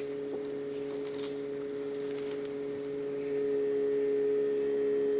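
Synthesized sung vowel from singing-synthesis software, held on one steady pitch as a buzzy, organ-like tone, set for protruded lips and a lowered larynx. It gets louder about two-thirds of the way through.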